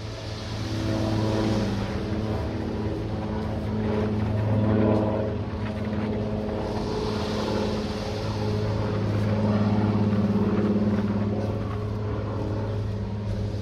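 Single-engine seaplane's propeller engine droning as it flies low overhead and away, steady in pitch and swelling and easing in loudness, with some wind on the microphone.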